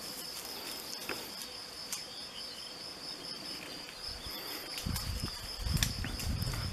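Crickets chirring steadily in long grass. From about five seconds in, low rustling thuds of someone walking through the vegetation join in.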